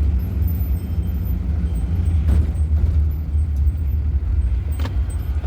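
Low, steady rumble of a van's engine and road noise heard from inside the cab as it drives slowly, with two faint clicks about two and five seconds in.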